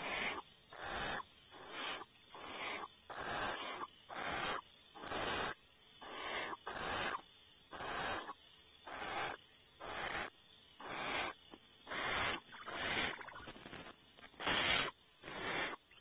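Barn owl giving its rasping, breathy hiss-like 'snore' calls over and over, about one and a half a second, each a short hiss; this snoring is the barn owl's food-begging call.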